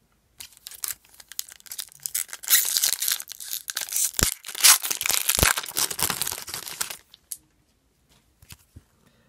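A foil hockey card pack wrapper being torn open and crinkled: a dense crackling rustle lasting several seconds, thinning to a few light clicks near the end as the cards are taken out.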